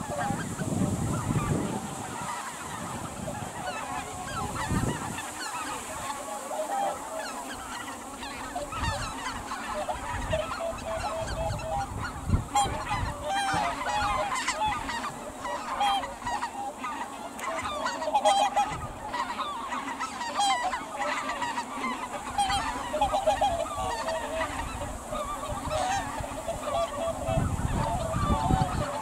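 A mixed flock of greater white-fronted geese and Aleutian cackling geese calling on the water: many short, overlapping honking calls, kept up without a break.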